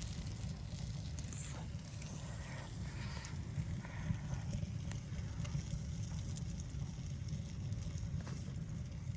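A steady low wind rumble, with scattered small crackles and ticks over it.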